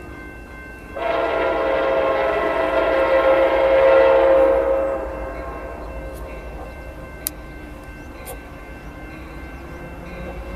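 Locomotive horn on an approaching train blowing one long blast of several steady tones together. It starts sharply about a second in and fades out after about four seconds.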